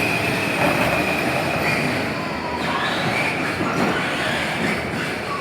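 Battery-powered Power Wheels ride-on toy truck driving: its electric drive motors and gearbox whine steadily over the rumble of its hard plastic wheels rolling on the floor. The high whine fades about halfway through.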